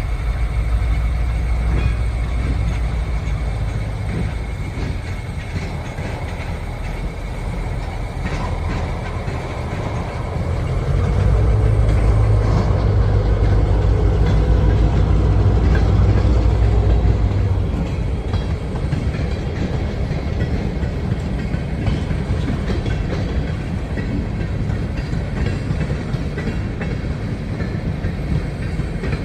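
Diesel locomotive switching rail cars: its engine rumbles steadily under the clatter of car wheels on the rails. The engine grows louder for several seconds partway through, then drops back.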